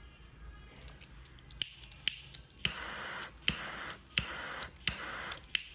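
A vintage lighter being struck over and over: sharp clicks of the flint wheel and lid about every half to three-quarters of a second, each followed by a short rasping hiss.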